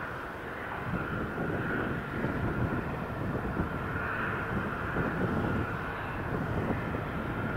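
Airbus A330-200's Rolls-Royce Trent 700 jet engines on final approach, gear down: a steady jet rumble with a whine that swells and fades a few times.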